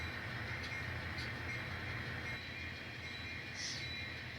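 N scale model locomotive running, pulling a string of cars along the track: a steady low hum.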